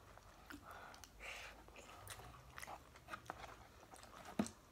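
Close-up chewing and crunching of food topped with hot Cheetos, with small fork clicks against the container and one sharper click near the end.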